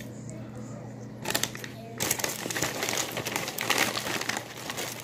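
Crinkling and rustling of wheat-cracker packaging as a hand digs out crackers: a few crackles a little over a second in, then continuous crinkling from about two seconds in.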